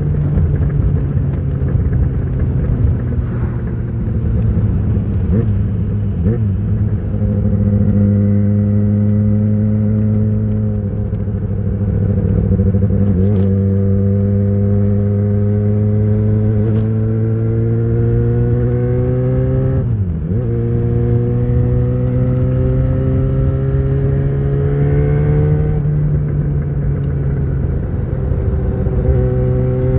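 2013 Yamaha XJ6's inline-four running through an Ixil full exhaust with the dB killer in, pulling at a steady cruise with its pitch slowly rising. About two-thirds of the way through the pitch dips sharply for a moment, then climbs again.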